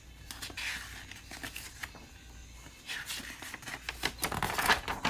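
Paper pages of a picture book being handled and turned: rustling and crinkling in two bursts, the louder one as a page flips over near the end.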